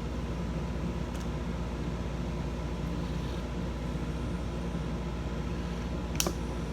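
Steady hum of a room fan unit, an air cooler or heater, running. One sharp click about six seconds in.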